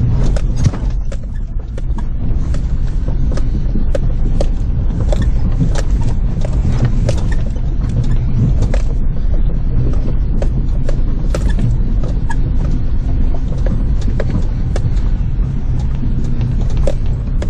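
Vehicle engine running steadily in low gear, heard from inside the cab, with frequent knocks and rattles as it bounces over a rough, rutted dirt track.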